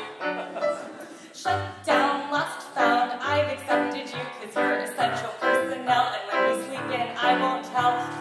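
A woman singing a comedic song to her own Yamaha electronic keyboard accompaniment, with bass notes under the chords; the music dips briefly about a second in, then picks up again.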